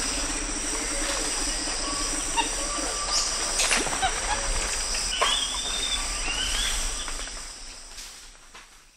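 Tropical rainforest ambience: a steady high insect drone with several birds whistling and calling, and a few sharp clicks. It fades out over the last two seconds.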